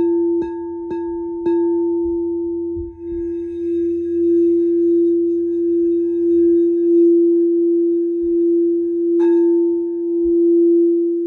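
Singing bowl struck four times in quick succession, about half a second apart. It then sings a steady ringing tone that slowly swells and wavers, and is struck once more near the end.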